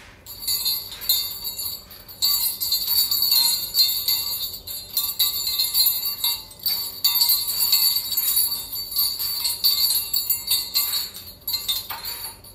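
Small metal craft jingle bells, hung on twine in a birdcage, jingling in irregular bursts with short pauses as a lovebird pecks and shakes them.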